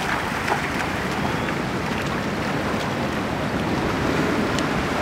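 Wind on the microphone over small waves washing in shallow water at a seawall, a steady noise with a few faint ticks.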